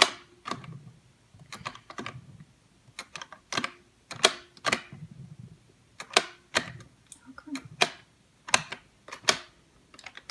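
Sharp plastic clicks and taps, irregular at roughly two a second, as Orbeez water beads are released from a toy dispensing station's column into a small plastic cup.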